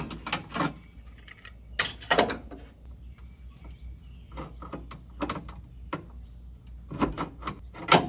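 Metal clicks and knocks of hand work at the engine's distributor, in four short clusters, while the engine is brought round to put the points on the cam lobe.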